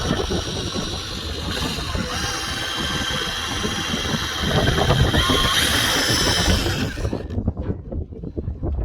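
Power tool motor running with a steady high whine, its pitch shifting slightly as it works, then stopping about seven seconds in. Wind buffets the microphone throughout.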